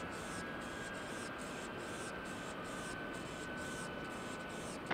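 Four Pratt & Whitney F117 turbofans of a distant C-17 Globemaster III running at low power as it rolls out: a steady rushing noise with a faint high whine slowly falling in pitch.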